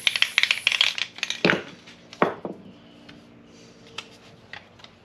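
Aerosol can of spray adhesive hissing and sputtering for about a second before it cuts out: the can is nearly empty. Two sharp knocks follow, then faint ticks and rustles of paper being pressed down.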